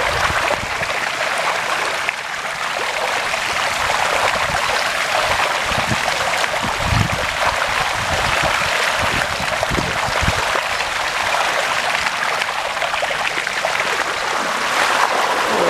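Steady rush and slosh of floodwater around a bicycle wading through a deeply flooded street, with a few low thumps in the middle.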